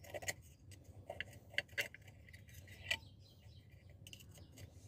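Faint, sharp metallic clicks and clinks of small hand tools on the water pump's metal parts as the inner water seal is worked loose. There are about five irregular clicks, the loudest two close together in the middle.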